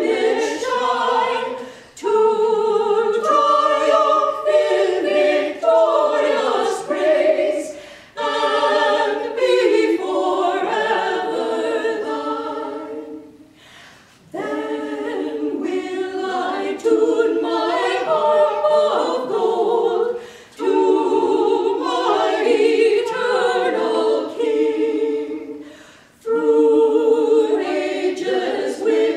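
A women's vocal quartet singing unaccompanied in part harmony, in sung phrases of about five or six seconds with short breaths between them.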